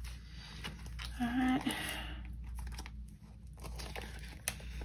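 Paper banknotes and envelopes rustling and crinkling as cash is handled, with a short vocal hum a little over a second in.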